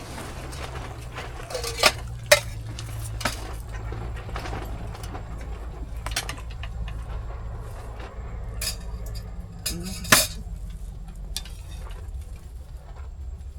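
Spoons and chopsticks clinking and scraping against dishes and bowls as food is mixed and eaten, in scattered sharp clinks, the loudest about two seconds in and again near ten seconds in, over a steady low hum.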